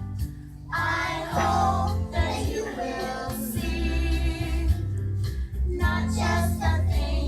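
Children's song playing, with young voices singing over a backing track that has a steady bass line.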